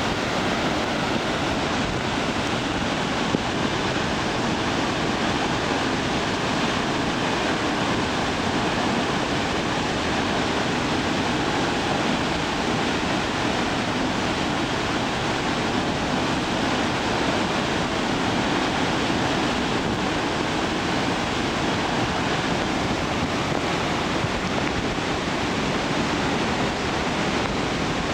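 Nunobiki Falls' Ondaki waterfall pouring after a typhoon's rains: a steady, unbroken rush of falling water.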